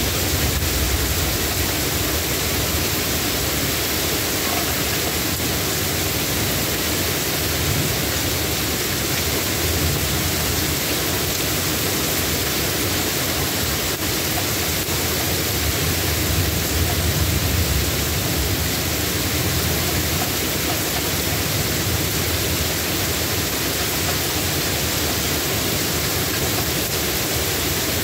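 Steady rain falling, an even hiss. A deeper low rumble swells up a few times.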